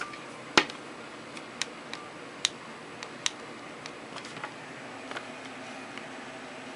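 Irregular sharp clicks and ticks, about a dozen spread unevenly, the loudest about half a second in, over a faint steady hiss.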